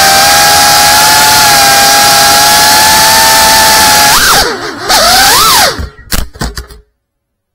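Geprc Cinelog 35 ducted cinewhoop drone's motors and propellers, heard through its onboard camera's microphone. A steady high whine over loud rushing air swings up and down in pitch with the throttle, then a few sharp knocks as the drone tumbles, and the sound cuts off suddenly.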